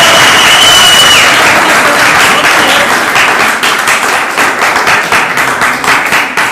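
Audience cheering and applauding after a recited couplet: a high held shout over the first second, then dense clapping that gradually dies away.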